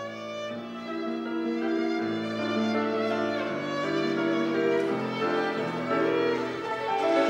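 Violin playing a slow melody of held notes over a lower accompaniment.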